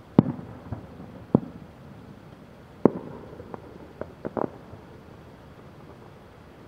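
Aerial firework shells bursting in the distance: about eight sharp bangs, each trailing off in a brief rumbling echo, with a quick cluster of smaller bangs about four seconds in.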